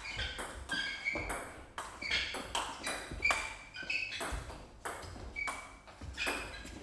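Table tennis rally: the celluloid-type ball clicks in quick succession as it bounces on the table and is struck back by the rackets, a few sharp pings each second with a short high ring.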